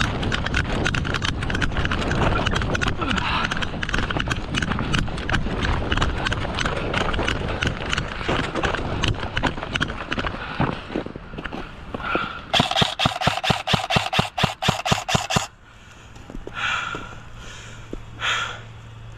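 Running footsteps with gear jostling against the microphone. About two-thirds of the way in, an airsoft electric gun fires a rapid, evenly spaced string of shots for about three seconds. After the firing it goes quieter.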